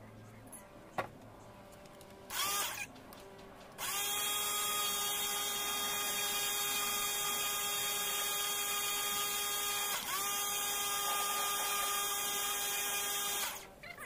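A small electric power-tool motor spins up and runs steadily for about ten seconds, with a faint hiss over it. It cuts out briefly midway and spins straight back up. There is also a short burst a couple of seconds before it starts.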